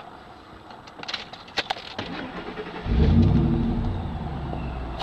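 Kenne Bell–supercharged 5.4 Triton V8 of a 2002 Ford Lightning being started: a few clicks, then the engine catches nearly three seconds in with a flare of revs and settles back toward idle.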